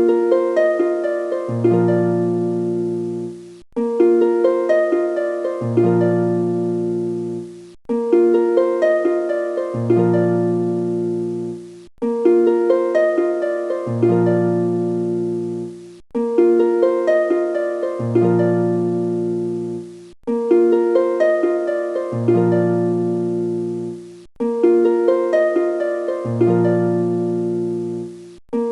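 Background music: a short melodic phrase of quickly fading notes, looping about every four seconds with a brief break before each repeat.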